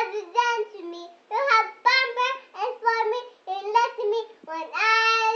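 A three-year-old girl singing unaccompanied in short phrases, holding one long note near the end.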